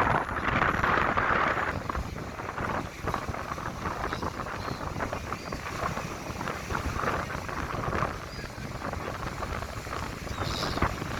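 Wind buffeting the microphone in uneven gusts, with a few faint, short high calls in the middle and near the end.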